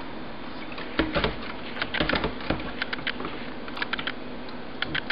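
Serving spoon clicking and knocking irregularly against a plastic pitcher while stirring powdered tea mix into water, the clicks busiest about one to three seconds in.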